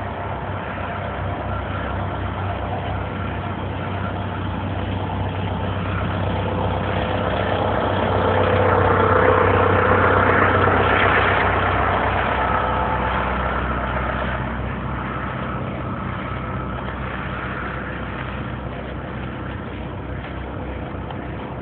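Motor vehicle engine running with a steady low hum. It swells louder for a few seconds midway, then fades again.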